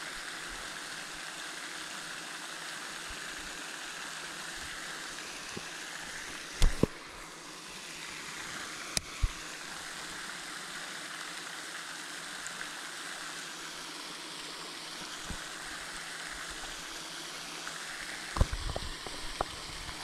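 Steady rush of running water, with a few short knocks about six and nine seconds in and a quick cluster of clicks and knocks near the end.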